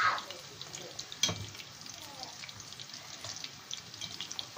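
Sausage-filled yufka börek rolls deep-frying in a pan of hot oil: a steady sizzle with scattered crackling spits, and two sharp knocks, one at the start and one about a second in.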